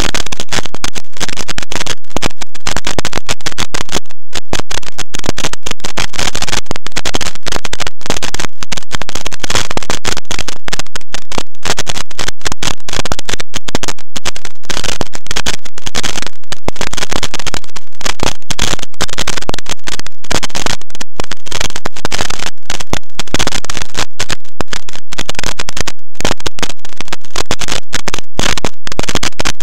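Silverlit SpyCam toy helicopter in flight, its motors and rotor wash picked up by its own onboard camera microphone as a steady, very loud, clipped crackling noise.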